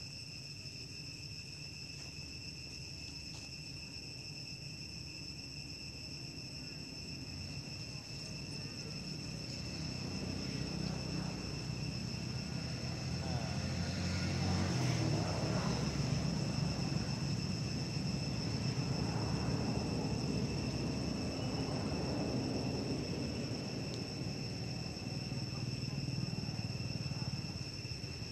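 A steady high insect drone at two fixed pitches runs throughout. A low engine rumble swells from about ten seconds in, is loudest around the middle, then eases off a little.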